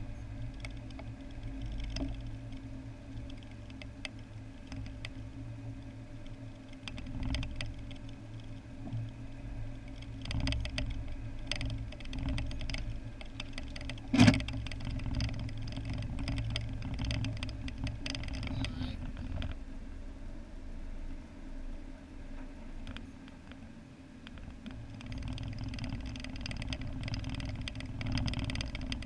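Car engine and road noise heard from inside the cabin while driving: a steady low hum that rises and falls with the drive. A single sharp knock about fourteen seconds in is the loudest sound.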